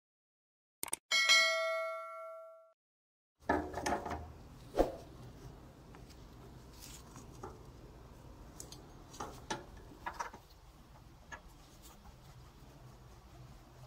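A click and a bell-like notification ding that rings for about a second and a half, then knocks and handling noise as wooden blocks are picked up and set down on a steel workbench, with two sharp knocks about three and a half and five seconds in.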